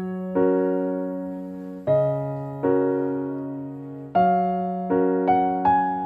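Background music: an electric piano playing slow, gentle chords, a new chord struck every second or two and left to fade.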